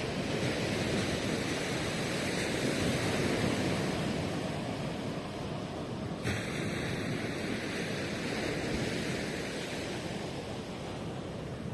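Ocean surf breaking and washing on the shore: a continuous rushing wash that swells over the first few seconds, then eases.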